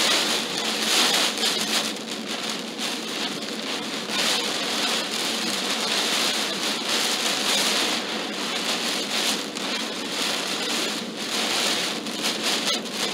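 Heavy downpour hitting a car's windshield and roof, heard from inside the car: a steady dense hiss that swells and eases.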